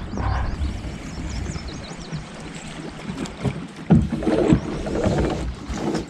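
Ambient sound aboard a drift boat on a river: a low rumble of wind on the microphone and moving water, with faint high chirps in the first half. A brief low voice-like murmur comes about four seconds in.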